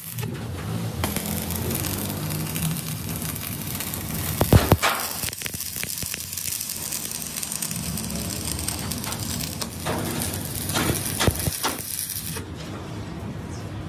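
Stick (shielded metal arc) welding on a steel tank: a steady crackling sizzle from the arc, broken by a few sharper cracks about four and a half seconds in and again around ten to eleven seconds.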